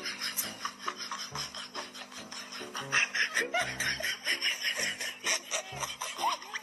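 Background music with a steady beat and fast percussive ticks, with a few short sounds that rise and fall in pitch partway through.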